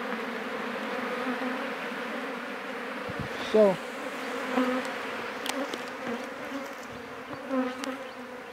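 African honeybees buzzing in a steady hum around an opened top-bar hive.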